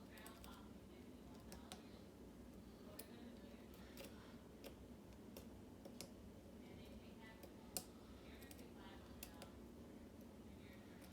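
Faint, scattered light clicks and ticks of a lock pick working the pins of a Schlage mortise cylinder under tension, with one sharper click a little under eight seconds in.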